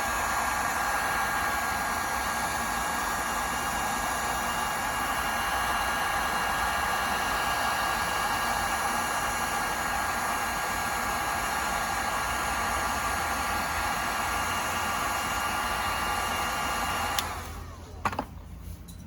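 Electric heat gun running steadily, a blowing hiss with a faint steady whine, then switched off a couple of seconds before the end, followed by a click.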